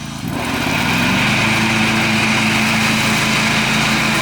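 Riding mower with its cutting blades just switched on by the pull-up blade knob. About a second in, the engine's pitch rises as the blades spin up, then it settles into steady running with a high whine from the spinning deck.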